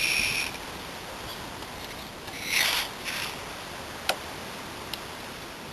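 Short hissing bursts of an aerosol silicone spray squirted through its straw nozzle up inside a door hinge to flush out the muck: one at the start, then two more about two and a half and three seconds in. A single sharp click about four seconds in.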